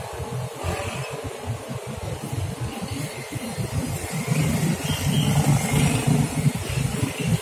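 Street traffic with motorcycle and tricycle engines running as they pass, the engine hum growing louder about halfway through.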